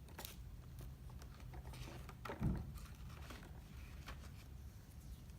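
Faint handling noise from lock picks and their packaging: a few small clicks and taps, with one soft low thump about two and a half seconds in, over a low room hum.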